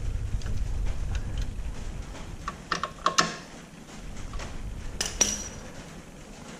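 Hand socket ratchet clicking in short runs as the motorcycle crash bar bolts are snugged, with scattered metal clinks of the tool; one sharp ringing clink about five seconds in.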